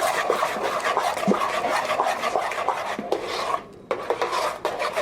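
A spoon stirring peanut and oat porridge in a pan, scraping and rubbing steadily against the pan with small clinks, pausing briefly a little over three and a half seconds in.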